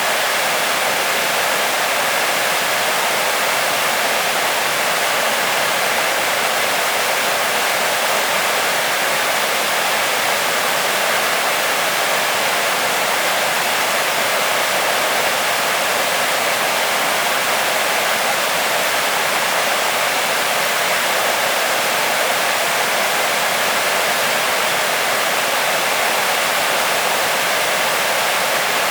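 Waterfall: falling water rushing steadily, with no change in strength.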